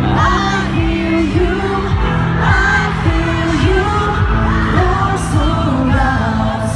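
K-pop song performed live by a male vocal group: sung vocals over a steady beat and a heavy bass line.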